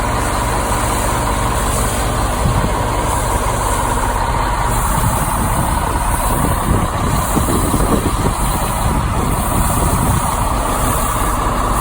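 An engine running steadily at idle, with no change in pace.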